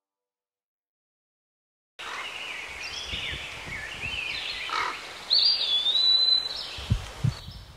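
Silence for about two seconds, then outdoor birdsong: several birds chirping, with one longer, louder high call that drops in pitch about five seconds in.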